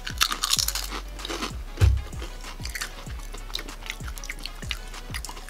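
Doritos tortilla chips crunching as two people bite into them and chew, with the crunching thickest in the first second. Background music with a steady beat runs underneath.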